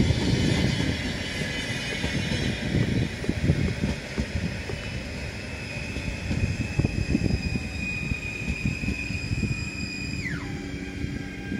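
PESA Dart ED160 electric multiple unit passing at speed: wheels rumbling on the rails, with a steady high whine that drops sharply in pitch near the end as the last car goes by.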